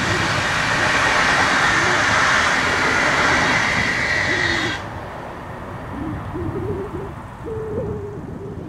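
Trans Europ Express passenger coaches rolling past on the track, a steady rushing rumble that drops off abruptly about halfway through as the last coach goes by. After that, a fainter background with a few short wavering tones.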